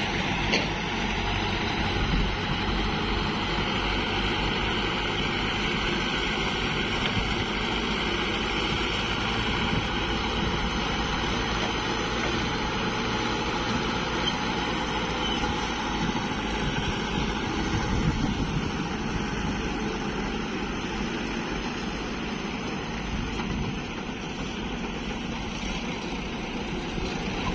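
Farm tractor's diesel engine running steadily as it hauls a trailer loaded with soil.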